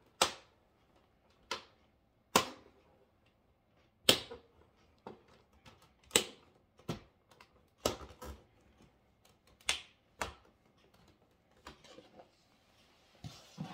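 Plastic retaining clips of an Asus PG27UQ monitor's back shell snapping loose as the cover is pried open with a guitar pick: a dozen or so sharp clicks at irregular intervals, about one a second. The clips are releasing as they should; nothing is breaking.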